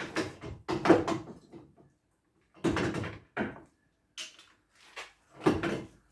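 A handful of irregular knocks and clunks from suspension parts being handled and fitted to a car's front end: two near the start, one about two and a half seconds in, and a loud one near the end.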